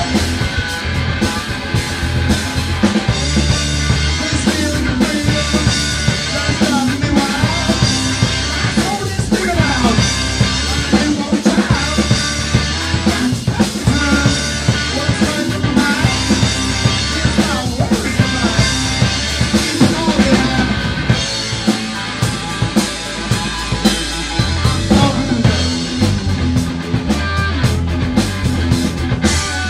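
Live rock trio playing loudly: electric guitar, electric bass and a drum kit with steady snare and bass-drum beats.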